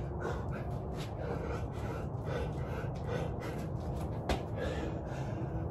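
Heavy, gasping breaths of a man working through burpees between rep counts, over a steady low hum. A single sharp knock comes about four seconds in.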